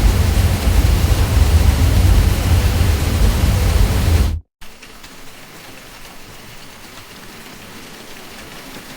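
Steady ceiling-fan drone: an even whooshing noise with a strong deep hum underneath. It cuts out abruptly a little over four seconds in, and after a split-second of silence a much quieter, even hiss carries on.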